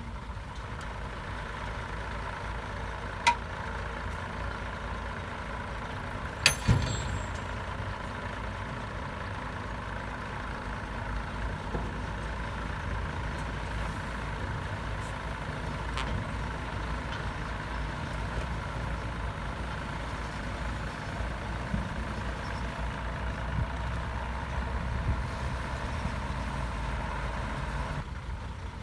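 Komatsu D68B bulldozer's diesel engine running steadily under work, with sharp metallic clanks about 3 seconds and 6.5 seconds in.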